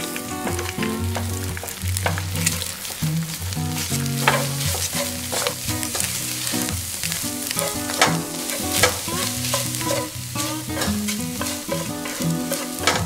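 Eggs sizzling in a hot nonstick frying pan while a spatula repeatedly scrapes and stirs them into scrambled eggs. Light background music plays underneath.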